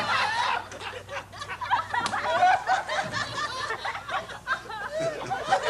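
People laughing and chuckling in short, broken bursts, mixed with a little indistinct chatter.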